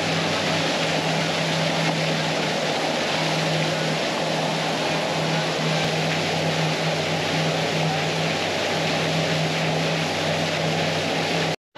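Motorboat engine running at a steady speed, a constant hum under an even rushing noise of wind and water; the sound cuts off suddenly near the end.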